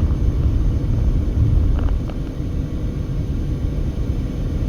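Low, steady rumble of road and wind noise inside a passenger car driving on the highway.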